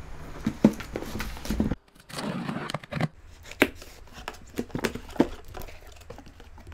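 Packing tape on a cardboard box being cut and pulled open: scraping and crinkling of tape and cardboard, broken by several sharp clicks and taps.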